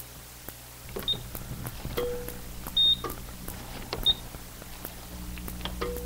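Dental X-ray unit making an exposure: several short, steady electronic beeps, the loudest about three seconds in, with a few lower tones and clicks over a steady low hum, the sequence played more than once. The beep is the legally required audible warning that X-rays are being generated.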